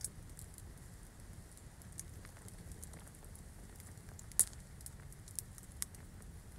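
Campfire embers crackling, with sharp pops at irregular intervals over a steady low rumble; the loudest pop comes about two-thirds of the way through.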